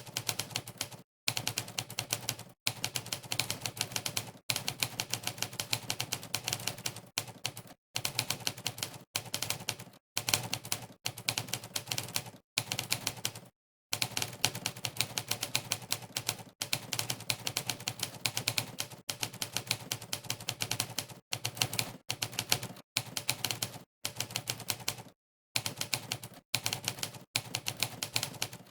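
Monkeytype's sampled typewriter keypress sound, played once for every keystroke during fast typing. The rapid clacks come in runs of one to two seconds, with brief breaks of dead silence between them.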